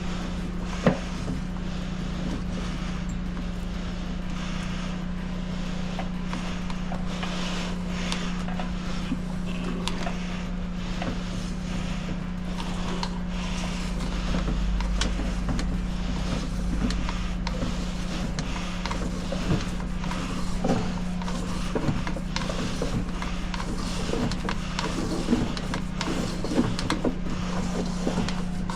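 A machine running steadily with a constant hum, with scattered clicks and knocks over it.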